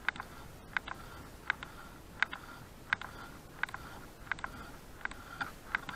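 Fly line being retrieved by hand, with a sharp double click about every three quarters of a second as each pull draws the line through the fingers and rod guides.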